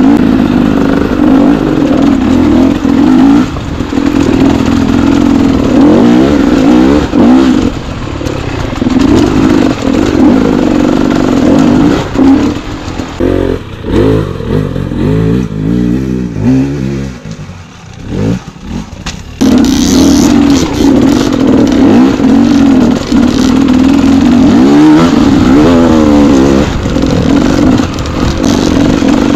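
Dirt bike engine being ridden, the revs rising and falling over and over as the throttle is worked. Past the middle it drops to a quieter, lower run, then picks up sharply again.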